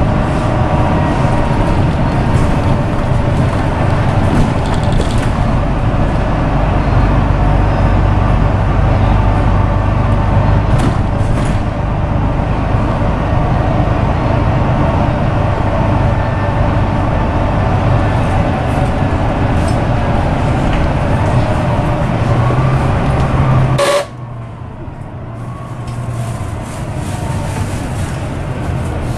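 Volvo B9TL double-decker bus on the move, heard from inside the cabin: its 9.4-litre Volvo D9B engine and ZF EcoLife automatic gearbox running with steady road noise, a low rumble and a faint whine. Near the end the sound drops suddenly to a quieter level.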